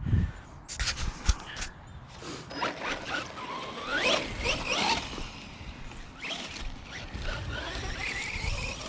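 A small electric RC buggy's motor and drivetrain whining, rising and falling in pitch as the throttle is worked, over rough noise from the wheels and chassis. A few sharp knocks come in the first second or so.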